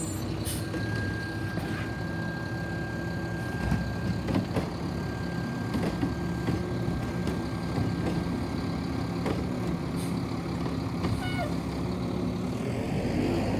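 Front-loading garbage truck's diesel engine running close by, with a thin steady high whine over it and a few sharp metallic clunks. Near the end the engine note rises as the truck pulls away.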